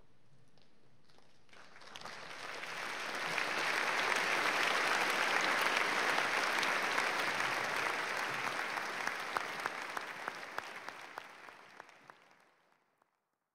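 A large audience applauding: the clapping starts about two seconds in, swells to a full round of applause, then thins to scattered separate claps and fades away near the end.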